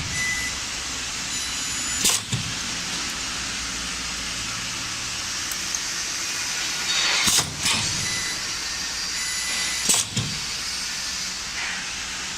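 Steady machine noise with a few sharp clunks, about two, seven and ten seconds in.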